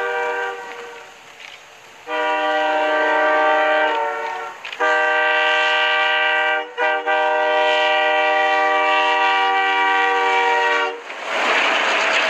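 Locomotive multi-chime air horn sounding a series of blasts: a long one, another long one, a very short one and a final long one, the pattern sounded approaching a level crossing. At about 11 s the horn stops and a loud rush of noise takes over as the plow's spray of blown snow engulfs the spot.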